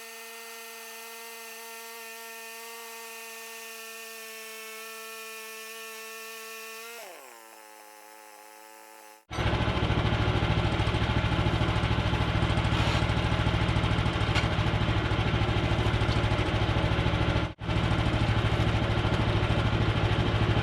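A small electric motor whines steadily at a high pitch, then winds down about seven seconds in. From about nine seconds the sawmill's gasoline engine runs loud and steady.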